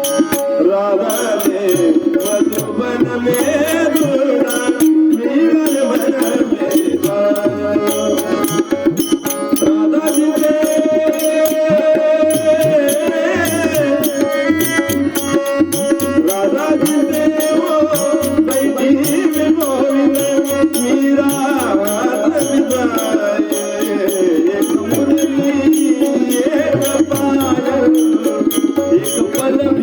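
Marathi devotional abhang music: a voice singing over a steady rhythm of hand drum and small clicking cymbals.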